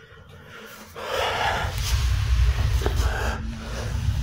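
A man breathing hard and fast close to a phone microphone, the breaths blowing on the mic as repeated hissy surges with a heavy rumble, starting about a second in.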